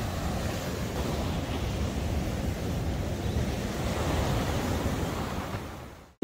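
Ocean surf breaking and washing up a sandy beach, a steady rushing that fades out near the end.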